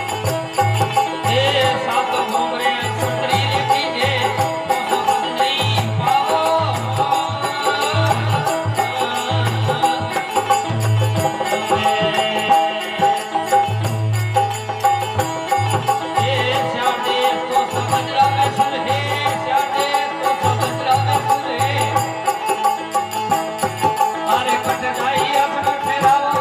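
Devotional folk bhajan music: an organ plays sustained notes and melody over a pulsing low drum beat, with no clear singing.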